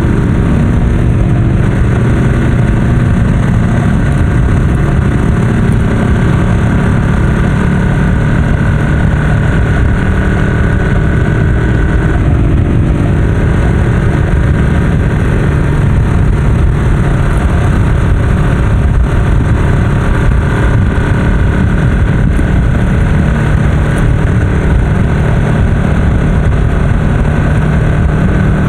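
Ducati Scrambler's air-cooled L-twin engine through a Termignoni full-system exhaust, running steadily at motorway cruising speed.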